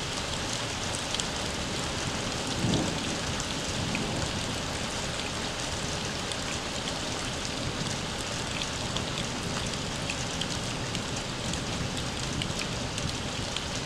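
Steady rain falling on an outdoor surface, an even hiss with fine pattering drops, and a brief low bump about three seconds in.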